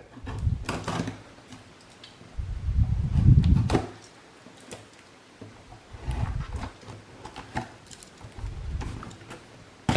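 A cardboard shipping box being handled and cut open: bursts of scraping and rubbing, the loudest a little over two seconds in, with a few light clicks.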